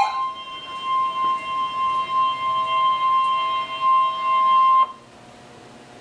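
NOAA Weather Radio warning alarm tone, the steady 1050 Hz alert tone, sounding from weather radio speakers and wavering in loudness, then cutting off suddenly about five seconds in. The tone signals that a severe thunderstorm warning message follows.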